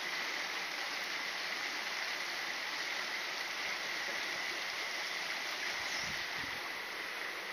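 Steady rush of a rainforest stream, with a constant high-pitched insect buzz over it.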